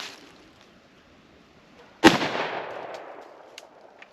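A single unsuppressed rifle shot, a supersonic .300 Blackout round, about two seconds in: a sharp, loud crack followed by a decaying echo.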